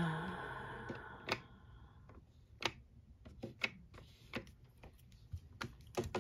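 Nail-stamping tools being handled: a rustling hiss that fades over the first two seconds, then a string of sharp, irregular clicks and taps of small hard objects being picked up and set down.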